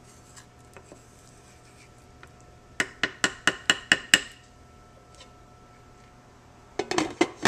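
A wooden spoon knocked against the rim of a slow-cooker crock, about seven sharp taps in quick succession around three to four seconds in. Near the end the glass lid clinks and rattles as it is set back on the crock.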